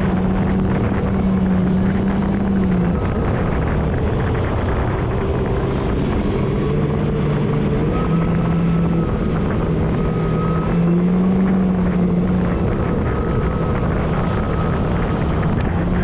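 Supercharged four-cylinder engine of a 2022 Kawasaki Ultra 310LX personal watercraft running hard at speed, its pitch dropping and rising again several times as the throttle changes. A thin, high supercharger whine comes and goes above it, over a steady rush of spray and wind on the microphone.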